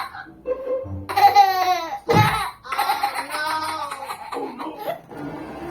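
Baby laughing heartily, in repeated bursts of giggles and belly laughs, over background music.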